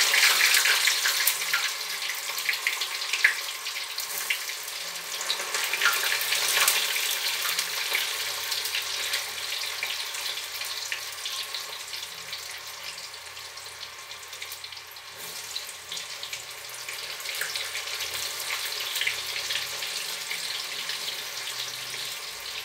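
Boiled corn kernels deep-frying in hot oil in a small pot: a steady sizzle with small crackles. It swells each time a fresh handful of wet kernels goes in, about three times.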